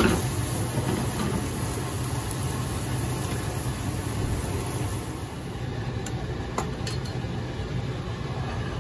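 Eggplant slices frying in a non-stick pan over a gas flame: a soft sizzle over a steady low rumble. The sizzle fades about halfway through, and a few light clicks come near the end.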